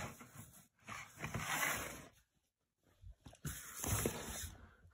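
Rustling and crinkling of crumpled paper being handled, in two stretches of about a second each with a short silent gap between.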